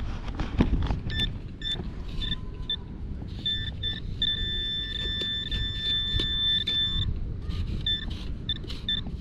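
Garrett handheld pinpointer beeping as it is pushed through a pile of dug sand: short intermittent beeps, then a steady tone for about three seconds in the middle, then short beeps again, showing the probe close to a buried metal target. A low steady rumble and small scraping clicks of the probe in the sand lie underneath.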